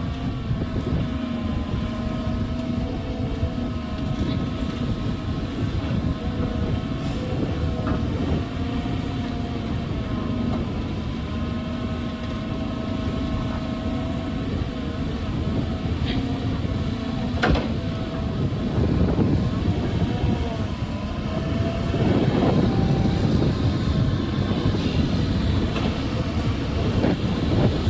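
Diesel engine of a Volvo 300 excavator running under hydraulic load while it loads a dump truck, its pitch rising and falling as the machine works. There are a couple of sharp knocks in the middle, and the noise grows louder and rougher for the last several seconds.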